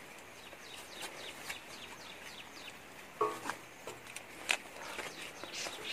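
Quiet rural outdoor background with scattered light clicks and taps, and one short animal call about three seconds in.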